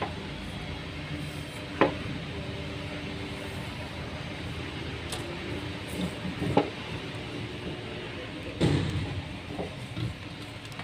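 Plastic fuel filter and pump-module parts being handled on a workbench: a few short clicks and knocks as pieces are picked up, fitted and set down, about 2 s in, around 6 s and near 9 s, over a steady low background hum.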